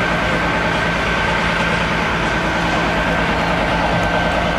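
Steady hum of a running vehicle, with a constant low drone and a thin, steady high whine over a bed of noise.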